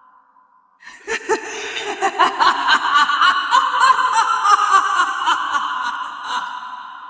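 A woman's devilish laugh sound effect: a rapid string of 'ha-ha' pulses begins about a second in, builds, then fades out with a lingering echo near the end.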